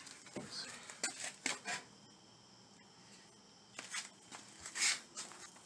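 Scattered short rustles and clicks of handling while a dryer that will not start is checked for loose wiring, over a faint, steady, high-pitched trill.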